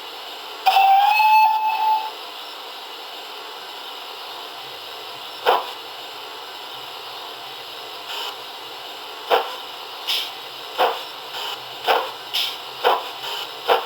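Sound decoder for a GWR 45xx 2-6-2T steam tank engine playing through the model's small loudspeaker. A short whistle blast about a second in, over a steady hiss. Then exhaust chuffs start singly and come quicker and quicker as the engine picks up speed.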